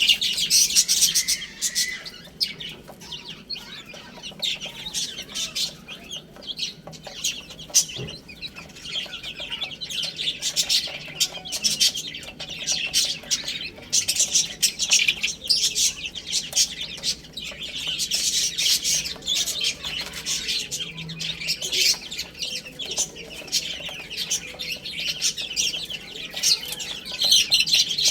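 A brood of baby chicks peeping continuously, many high chirps overlapping, swelling louder and easing off in waves.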